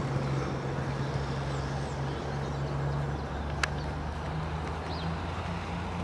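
A low, steady, machine-like hum whose pitch steps up slightly a few times. A single sharp click comes about three and a half seconds in.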